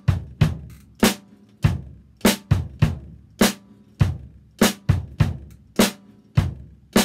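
Drum kit played in a steady groove: sharp snare drum strokes with the kick drum thumping underneath in a double kick drum pattern. The strikes come about one every 0.6 s, with quick pairs of hits dropped in between.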